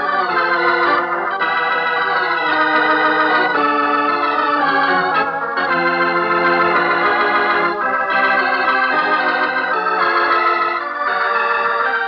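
Organ playing the show's closing theme: held chords with a slight waver, moving to a new chord every few seconds.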